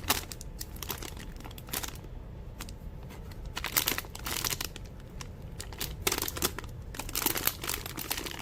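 Plastic wrapping crinkling in irregular bursts as it is handled, with a pause about two seconds in, over a steady low hum.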